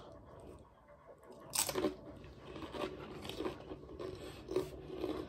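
Person biting and chewing Doritos tortilla chips: one loud crunching bite about one and a half seconds in, then chewing crunches about twice a second.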